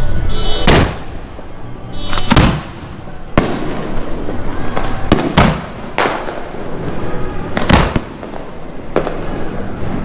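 Fireworks going off: a string of loud, sharp bangs at irregular intervals, roughly one every second or two, each with a brief rumbling echo.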